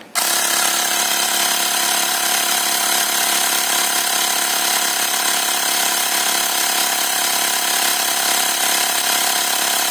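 Xiaomi portable electric air compressor running with a steady, even hum as it pumps up a bicycle tyre toward its 30 PSI preset; it starts up right at the beginning.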